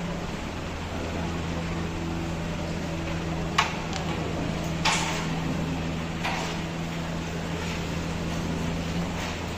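Carrom shot: a sharp click of the striker hitting the carrom men about three and a half seconds in, then a second click about a second later and a few fainter knocks as pieces strike each other and the board's wooden frame. A steady low hum runs underneath.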